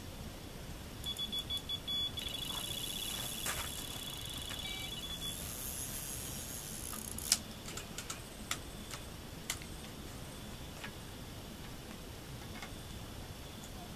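Electronic carp bite alarm beeping rapidly, then running into a continuous high tone for about three seconds, the sign of line being pulled over the sensor in a run. A few sharp clicks follow.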